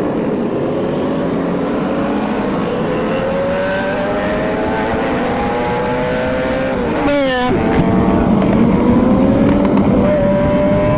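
Motorcycle engine running under a long, steady acceleration, its pitch slowly rising, then pulling up again after a brief dip near the end.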